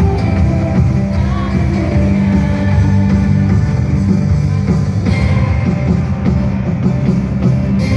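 Christian rock band music playing loud and steady, with electric guitar and drum kit.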